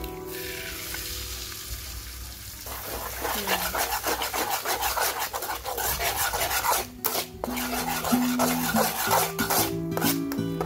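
Egg sizzling in a hot nonstick wok, then a metal spatula scraping and stirring the egg against the pan in quick, repeated strokes.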